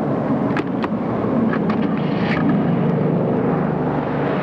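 Car engine running with steady road noise, and a few brief clicks in the first half.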